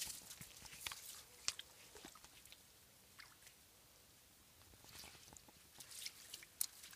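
Faint, scattered small splashes and crackling clicks as a ferret moves about in shallow water over a sandy bottom. They are quieter for a couple of seconds in the middle.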